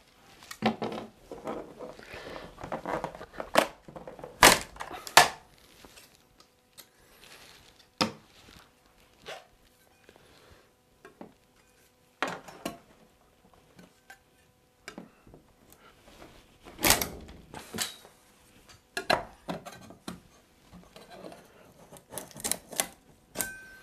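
Irregular clicks, cracks and scrapes of glued, stapled wooden door casing being pried and broken off the door jamb with a putty knife and by hand. A few sharp knocks stand out, the loudest about four and a half and five seconds in and again about seventeen seconds in.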